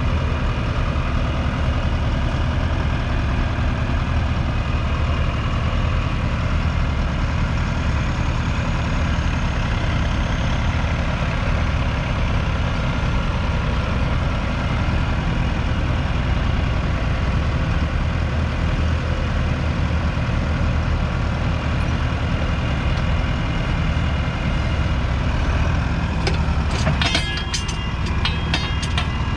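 1983 Fendt Farmer 309 LS's 4.2-litre four-cylinder diesel engine running steadily under load while the tractor pulls a two-furrow mounted plough through the soil. Near the end there is a short run of clicks and rattles.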